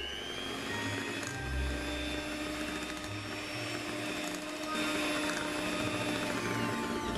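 Electric hand mixer running steadily, its twin wire beaters whirring through thick pumpkin cake batter in a glass bowl. The motor whine holds a steady pitch and dips slightly near the end.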